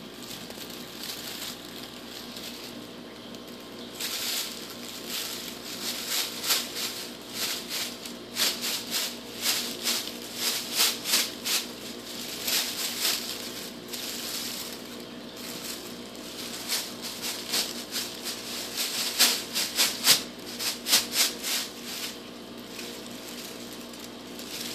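Black plastic garbage bag rustling and crinkling under a cat moving inside it, in irregular flurries of crackles that come thickest about a quarter of the way in and again about three-quarters in.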